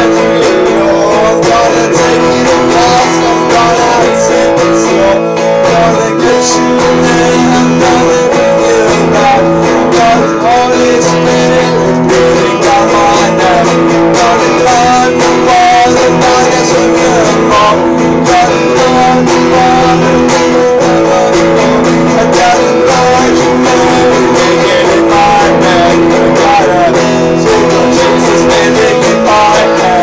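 Guitar being strummed in steady chords, with a man singing along over it in parts.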